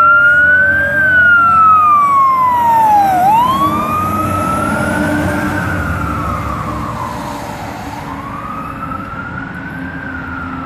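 Fire engine siren on a slow wail, rising and falling about every four to five seconds, over the truck's engine rumble, fading as the engine drives away.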